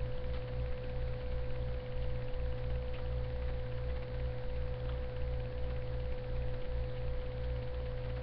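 Steady electrical hum: a constant mid-pitched tone over a low, pulsing drone, with no speech.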